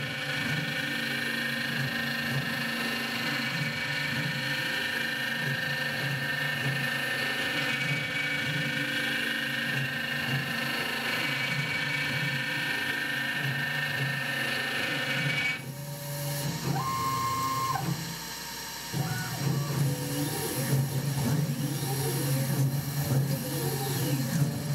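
Tormach PCNC 1100 CNC mill thread-milling an aluminium bar with a 60-degree single-form V cutter under coolant spray: the spindle and cutter run with a steady machine whine and a repeating rising-and-falling sweep as the cutter circles the bar. About two-thirds through, the sound changes abruptly, dips for a couple of seconds, then comes back louder with the same sweeps.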